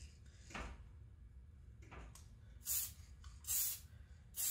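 Aerosol spray-paint can hissing in three short bursts about a second apart in the second half, spraying a coat of paint onto a clear lexan RC car body.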